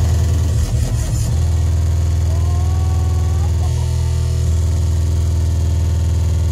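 Hardcore techno DJ set playing loud over a club sound system, distorted on the recording. A pounding kick drum runs for about the first second, then gives way to a long, sustained, distorted bass note, with a short gliding higher tone in the middle.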